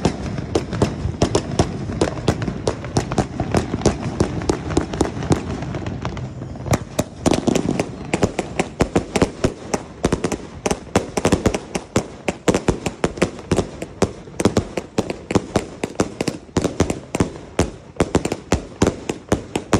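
A 260-shot firework cake firing in rapid succession: a steady string of sharp launch bangs and small aerial bursts, several a second, without a break.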